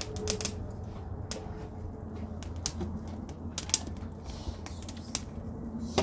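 Small open fire of dry sticks crackling, with irregular sharp pops, over a steady low rumble.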